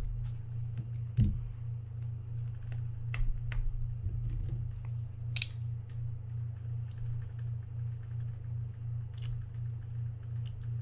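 Scattered small clicks and taps of baitcasting-reel parts and a small screwdriver being handled during disassembly, the sharpest about a second in. Under them a steady low hum pulses about three times a second.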